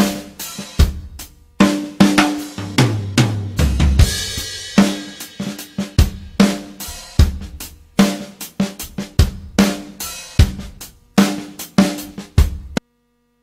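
Background music led by a drum kit, with snare, bass drum and cymbal hits in a steady beat over a bass line. It cuts off abruptly near the end.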